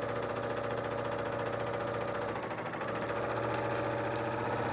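BERNINA serger (overlock machine) running steadily at speed, its needles making rapid even strokes. It is stitching a fabric strip around cotton cording in the piping foot, with the cutting blade trimming the seam allowance. The run eases briefly about halfway, then picks up again.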